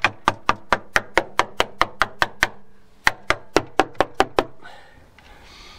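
Screwdriver tip rapidly tapping and jabbing the rusty steel floor pan of a Land Rover Discovery 2 footwell: a fast, even run of sharp metallic clicks, about five a second, with a short break midway, stopping about three-quarters of the way through. The floor is being probed to find whether the rust is only on the surface or has eaten through.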